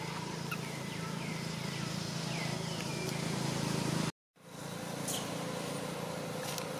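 Outdoor ambience: a steady low hum, with faint short chirping calls repeated over the first three seconds. The sound drops out completely for a moment about four seconds in, then the hum resumes.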